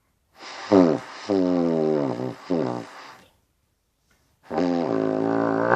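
Trumpet played through a trombone-sized mouthpiece, buzzing very low notes: three short notes that each slide down in pitch, then after a pause a long, steady low note.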